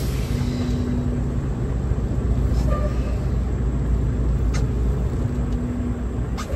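Semi truck's diesel engine running steadily, heard from inside the cab, with a few light clicks.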